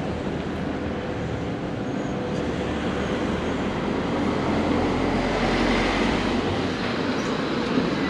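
Street traffic noise: a motor vehicle's low engine rumble over a steady hiss of the street, growing somewhat louder a little past the middle and then easing.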